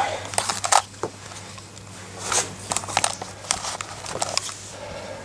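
Packaging being handled: crackly rustles and small knocks and clicks as wrapping comes off a keyboard, in irregular bursts that die down near the end.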